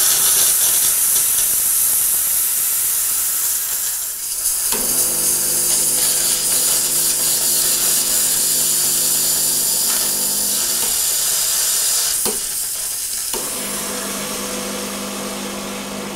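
Home espresso machine and coffee grinder at work: a hissing for the first few seconds, then a steady motor hum that stops briefly with a click and starts again.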